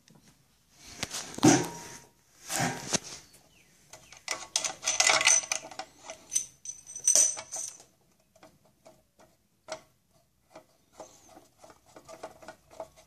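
Hands handling a metal amplifier case and its fittings: irregular metallic clicks, scrapes and rattles, busiest in the first eight seconds, then only scattered small ticks.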